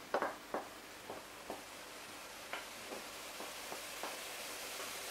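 A spoon knocking and scraping against a ceramic bowl as fried vegetables are pushed out of it into a stainless-steel pot: a string of light clicks, sharper at first, then softer and further apart, over a faint steady hiss.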